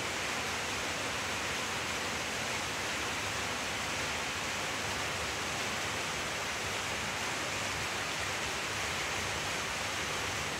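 Steady, even hiss with no distinct events; no crunching of the kibble stands out above it.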